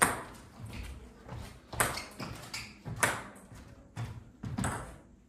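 Table tennis ball bouncing: four sharp, ringing clicks spaced one to two seconds apart.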